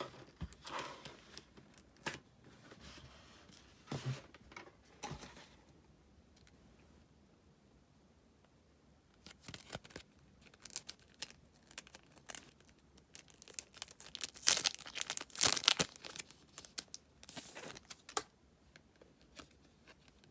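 Album packaging being torn open and crinkled by hand, in scattered bursts with a quiet spell about a third of the way in and the loudest tearing a little after the middle.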